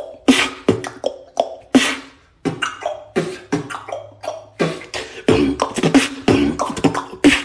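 Two people taking turns at vocal beatboxing: sharp mouth-made kick, snare and hi-hat hits, a short pause about two seconds in, a held low bass hum, then a faster run of beats near the end.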